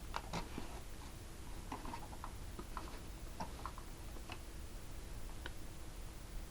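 Scattered light clicks and taps, a dozen or so at irregular spacing, heard over a faint steady hum.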